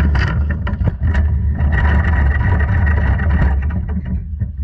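Quarter midget's Briggs & Stratton Animal single-cylinder engine running, recorded from an onboard GoPro, with a steady low rumble and a rush of added noise in the middle.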